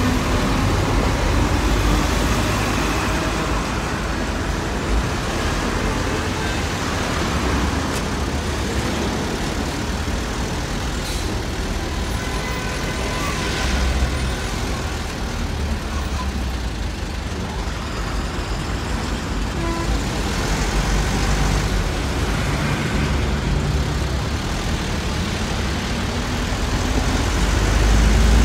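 Road traffic heard from the open back of a moving truck: a steady low rumble of engines and road noise.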